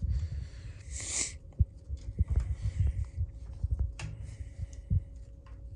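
Irregular low thumps and a few sharp metallic clicks from hands working the brake compensator and linkage under a golf cart.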